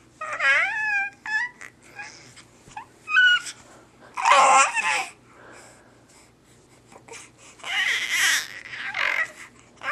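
High-pitched vocal noises: gliding, wavering whines and squeals, with louder breathy, screechy outbursts about halfway through and again near the end, and short pauses between them.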